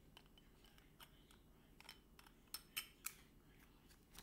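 Faint, scattered clicks and taps of small makeup items being handled and put away, with a few sharper clicks about two and a half to three seconds in.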